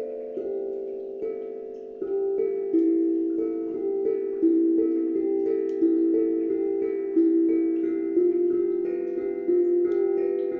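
Calm instrumental music: a slow melody of single ringing notes, a new one every half second to a second, each sustaining and overlapping the next.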